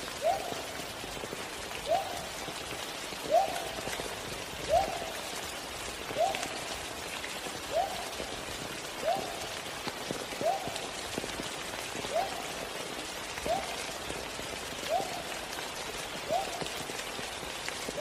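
Steady rain-like hiss of falling rain, with a short rising chirp repeated at an even pace about every one and a half seconds.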